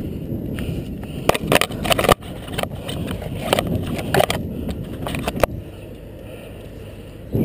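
Rumbling movement noise on a body-worn action camera, with a handful of sharp, irregular clicks and knocks between about one and five and a half seconds in, including a cluster of three around two seconds. It quietens somewhat near the end.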